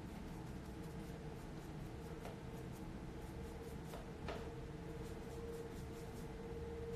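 Soft scratching of a paintbrush buffing thin oil paint onto a resin model horse, with a few light ticks about two and four seconds in, over a steady faint hum.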